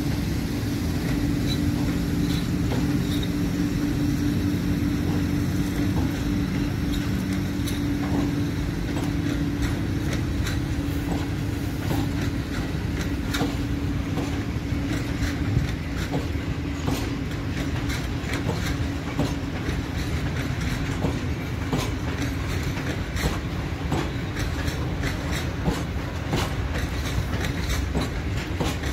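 A freight train of Falns-type self-discharging hopper wagons rolling past as it departs. Wheels clatter over the rail joints with a steady rumble underneath, and the clicks come faster and denser in the second half as the train gathers speed. A steady low hum fades out about two-thirds of the way through.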